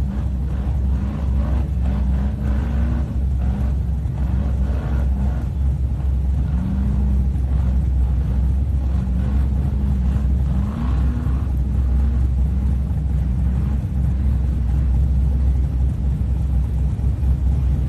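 Off-road vehicle's engine running under a heavy low rumble, its pitch rising and falling several times as it is revved.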